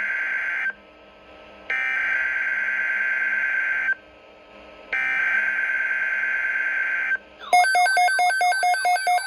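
EAS SAME header data bursts from a NOAA Weather Radio alert for a Severe Thunderstorm Watch: the tail of one buzzy digital burst, then two more of about two seconds each, a second apart. About seven and a half seconds in, a rapidly warbling electronic alert tone starts.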